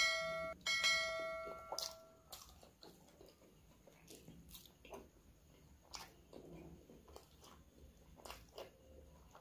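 Two quick bell chimes, the second ringing on for about a second and a half: a subscribe-button notification bell sound effect. Then faint chewing, lip smacks and finger clicks as soft sweets are eaten by hand.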